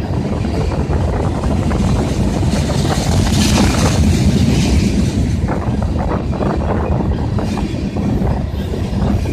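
Ethanol train's tank cars rolling past with a steady heavy rumble and irregular clicks from wheels over rail joints, with heavy wind buffeting the microphone. A hissing swell rises about three to four seconds in.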